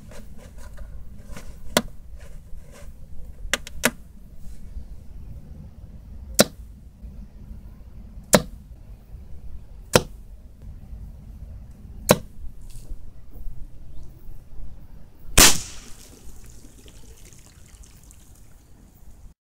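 A miniature compound crossbow shooting, heard as a series of sharp clicks, about eight in all, as small bolts are shot and strike the targets. The loudest snap comes about 15 s in, as a bolt punctures a plastic bottle, and a hiss of liquid spilling from the holed bottle follows it.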